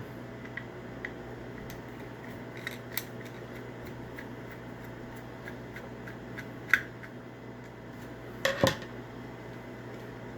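Scattered light clicks and taps of a screwdriver and small metal and plastic parts as a screw is taken out of an Onity hotel door lock's main board, with a sharper double click near the end, over a steady room hum.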